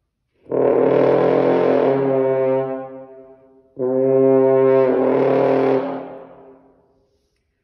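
French horn playing two long held notes, moving between flutter-tongued and plain tone: the first note starts with a rough, rattling flutter that settles into a clean tone about two seconds in, and the second starts clean and turns to flutter partway through. Each note fades away at the end.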